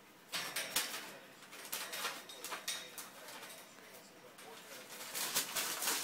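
Eclectus parrot crinkling and rustling the pages of a paper magazine with its beak, in irregular crackling bursts. It starts about a third of a second in, and the loudest bout comes near the end as it shakes the paper hard.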